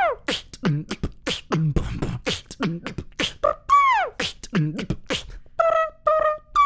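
Beatboxing: a fast vocal drum beat of kicks and snares with a mouth-trumpet imitation, short trumpet-like blasts and falling trumpet notes sliding down in pitch at the start, near the middle and at the end.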